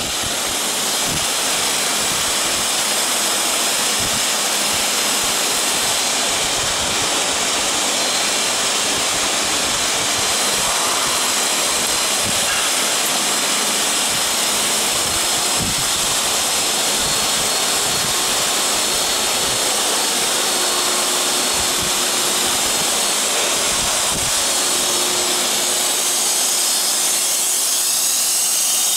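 An aluminium-profile CNC drilling and milling machine running, with a steady loud hiss and a faint steady high tone.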